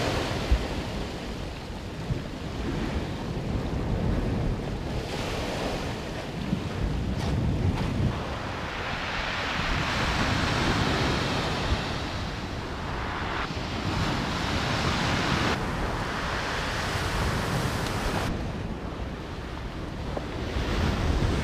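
Waves breaking on the beach, a steady hiss of surf that grows louder about halfway through, with wind rumbling on the microphone.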